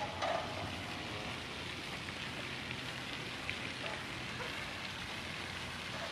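Steady, even outdoor background hiss with no single clear source, with a few faint ticks scattered through it.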